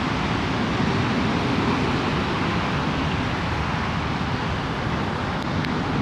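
Wind buffeting the phone's microphone in the rain: a steady, dense rush that flutters most in the low range.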